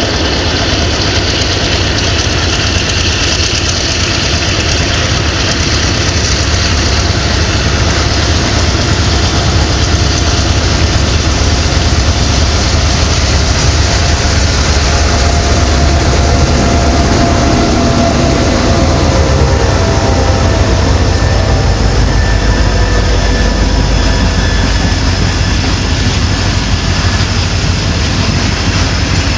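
Three S, T and C class diesel-electric locomotives passing under load, their engines giving a loud, steady deep drone. Loaded grain hopper wagons then roll by on the curve, with thin steady tones coming in about halfway through.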